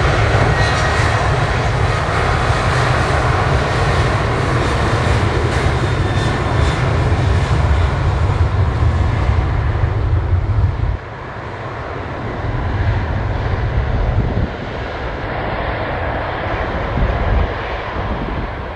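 Jet engines of a Boeing 737-700 (CFM56-7B turbofans) running loud as the airliner rolls along the runway past the listener, a deep rumble with a broad rushing noise. About eleven seconds in it drops sharply, and it goes on more softly as the aircraft moves away.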